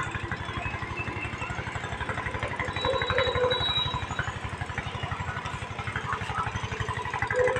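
An engine idling steadily, a low even pulse of about ten beats a second, with a couple of short faint sounds over it about three seconds in and near the end.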